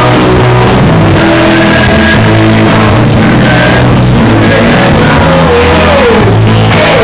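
Live rock band playing loud: electric guitars and a drum kit, with a man singing.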